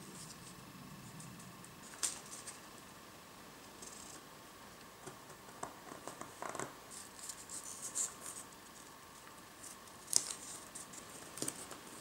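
Small wooden pieces and masking tape being handled on a workbench: scattered light taps of wood on wood and short rustles of tape being pulled and pressed, with a sharper tap about two seconds in and a louder one about ten seconds in.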